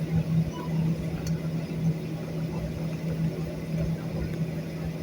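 Airliner engine noise heard inside the passenger cabin: a steady drone and low rumble with a constant hum.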